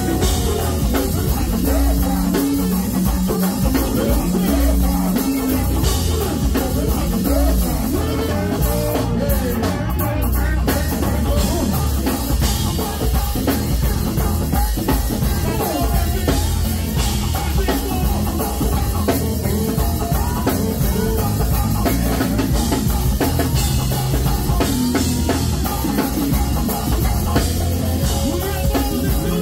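Live band playing loud amplified music, with a driving drum-kit beat, electric guitar and keyboards, recorded close up in the club.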